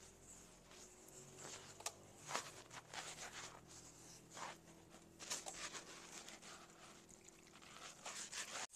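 Faint soft taps and rustles of dough being kneaded by hand in a bowl, coming at irregular intervals over a faint steady high hiss.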